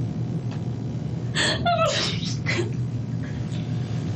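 A woman crying: three sharp, gasping breaths in the middle with a short whimper among them, over a steady low hum on the recording.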